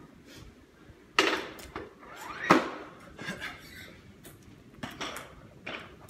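Weight plates being changed on a barbell's steel sleeve, metal clanking against metal: two loud clanks about a second apart near the start, then a few lighter knocks.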